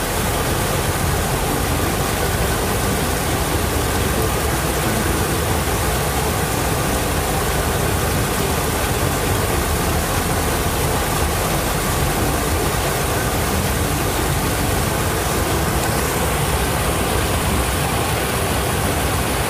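Small forest creek cascade, water rushing over rocks in a steady, unbroken rush.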